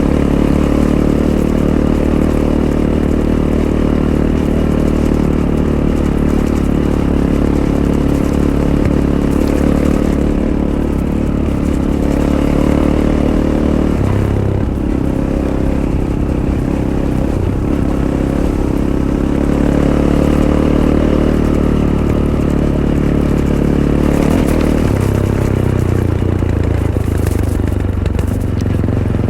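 Fantic Caballero 500's single-cylinder engine running under way through its stock Arrow exhaust. The engine note holds fairly steady, shifting about halfway through and again near the end.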